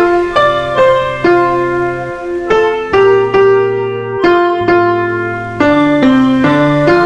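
Background piano music: a calm melody of single notes, struck about two a second.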